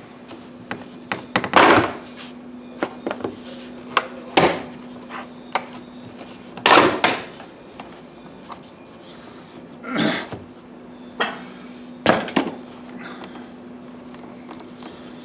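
Irregular knocks, clunks and clatters of hands and tools working on a car's interior trim, with about half a dozen louder knocks among smaller ticks, over a steady low hum.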